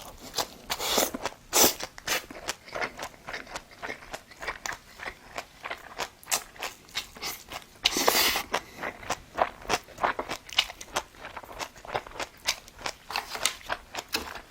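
A person chewing food: many quick, irregular mouth clicks and crunches, with a longer noisy burst about eight seconds in.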